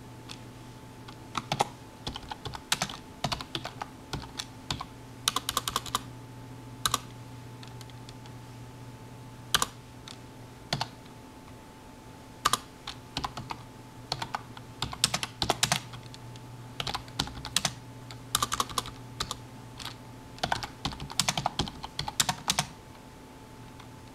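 Typing on a computer keyboard: irregular runs of key clicks broken by short pauses. A steady low electrical hum runs underneath.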